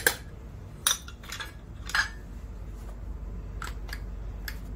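A metal spoon and a cornflour tin clinking as two tablespoons of cornflour are measured out: three sharp clinks about a second apart, then a few lighter ticks near the end.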